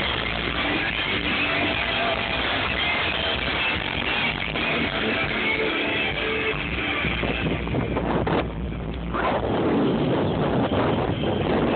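Music playing through a car's aftermarket audio system, with the high end briefly dropping out about eight seconds in.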